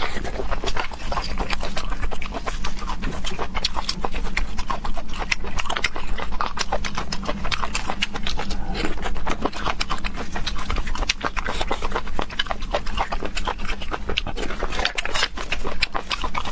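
Close-up eating sounds of someone eating cooked field snails: continuous wet smacking, sucking and chewing with many quick mouth clicks.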